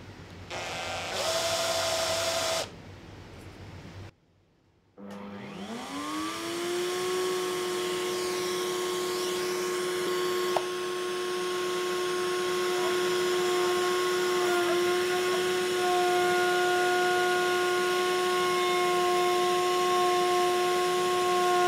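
An electric power tool's motor runs briefly. After a short gap, a motor spins up, its pitch rising for about three seconds, then runs steadily at full speed, with a single click partway through.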